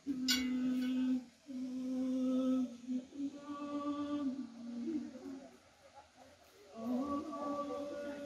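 A person humming a slow tune in long held notes that step up and down in pitch, with a short break about a second in and a quieter lull before the tune picks up again near the end.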